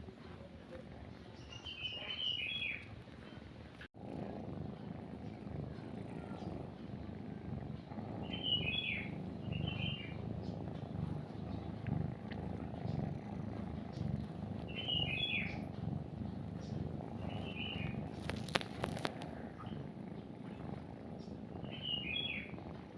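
A cat purring, a low steady rumble that starts about four seconds in after a brief gap, under a songbird repeating a short chirped phrase every few seconds. A few clicks come near the end.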